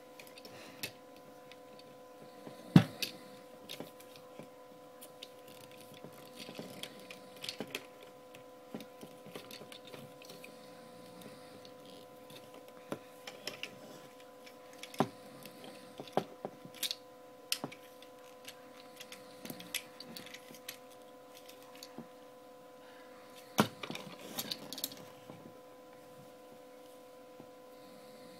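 Scattered plastic clicks and knocks from a large Dark of the Moon Ultimate Optimus Prime action figure as its parts are moved by hand, with a sharp knock about three seconds in. A steady hum runs underneath.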